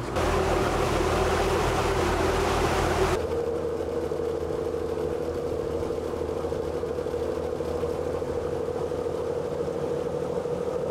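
Boat engine running, with rushing water and wind noise for the first three seconds. After an abrupt change it becomes a steadier engine drone with a humming tone.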